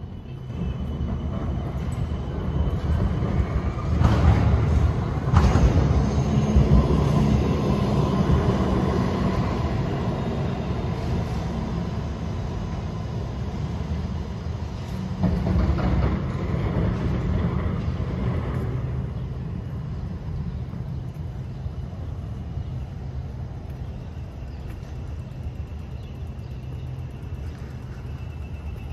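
A rail vehicle rumbling and clattering past amid city street noise, loudest about four to seven seconds in and swelling again around sixteen seconds, then easing off.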